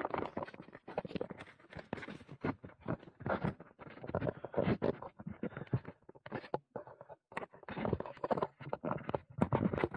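Handling noise from fingers gripping, rubbing and tapping an action camera and its quick-release mount right at the microphone while it is being fitted to a helmet: a dense, irregular run of scrapes, taps and small clicks.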